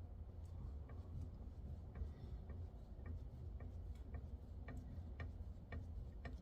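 Steady mechanical clicking: single sharp clicks a little under two a second, evenly spaced, getting louder about two-thirds of the way through, over a low hum.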